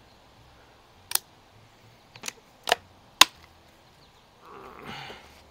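Walther LGR air rifle's action being worked by hand while reloading: four sharp mechanical clicks over about two seconds, the last one the loudest. A short, soft rustle follows near the end.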